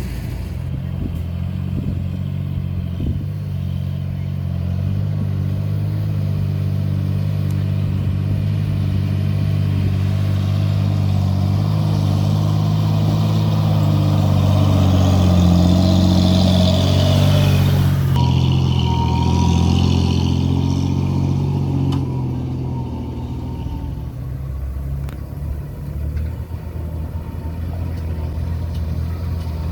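Diesel engine of a heavy earthmoving machine running steadily under load, its level building through the middle and changing abruptly about two-thirds of the way in.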